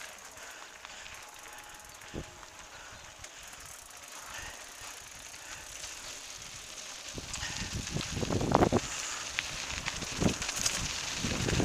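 A bicycle being ridden, with soft running noise and a single click about two seconds in. From about seven seconds in it turns louder, with a gusty rushing and buffeting sound.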